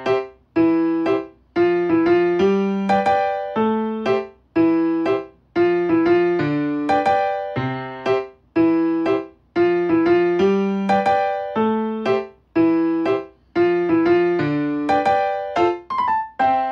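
Background music: a light keyboard tune of struck, piano-like notes and chords in a steady beat.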